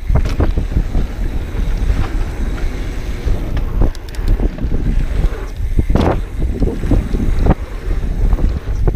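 Wind buffeting the microphone of a camera on a mountain bike's handlebar as it rides a dirt trail, a constant low rumble, with frequent short knocks and rattles from the bike over the rough ground.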